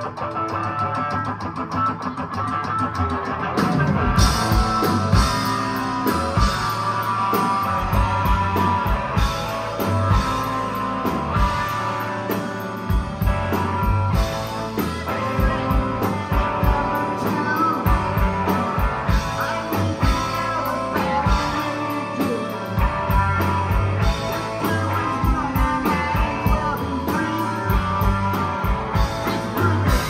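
Live rock band playing an instrumental passage: distorted electric guitars over bass and drums, recorded from the audience in a club. The drums and full band come in louder about four seconds in, then keep a steady beat.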